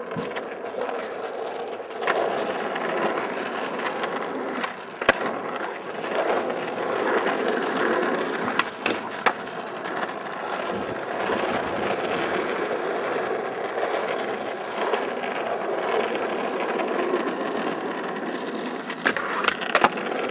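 Skateboard wheels rolling on smooth concrete, with several sharp clacks of the board popping and landing, a few of them close together near the end.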